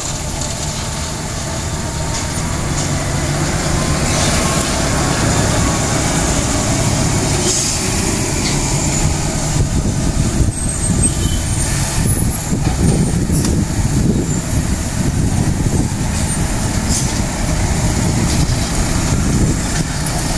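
Diesel engines of heavy trucks with trailers, one loaded with sugarcane, pulling up a steep grade as they pass close by: a steady low engine drone that swells slightly, with a few short high hisses.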